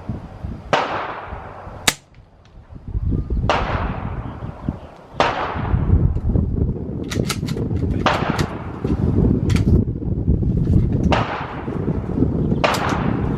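Suppressed .22 LR shots from a Ruger American rimfire rifle with a Yankee Hill Phantom 22 suppressor, six of them at uneven intervals a few seconds apart. Each is a sharp report that trails off over about a second. Steady wind rumble on the microphone runs underneath.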